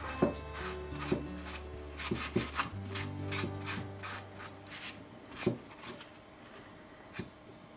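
Tissue rubbing over a painted, varnished model brick wall, wiping off the mortar wash from the surface and leaving it in the joints: a series of quick, irregular scratchy strokes.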